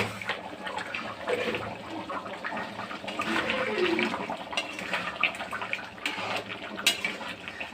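Mutton kosha sizzling and bubbling in a kadai, a steady noisy hiss, with a few sharp clicks of a utensil against the pan, the loudest near the end.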